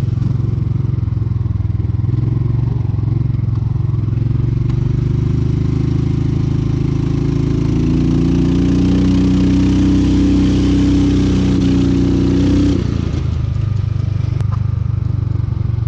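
EZGO golf cart's swapped-in 440cc DuroMax single-cylinder gas engine running while the cart drives. The revs climb from about six seconds in, hold high, then fall off suddenly about three seconds before the end.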